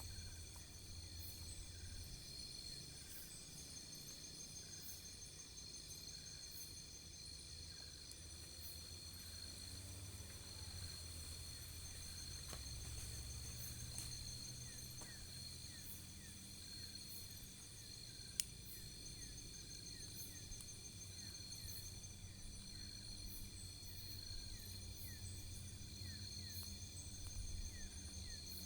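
Crickets and other insects trilling steadily, several overlapping high songs, some pulsing, over a faint low rumble, with a single sharp click about eighteen seconds in.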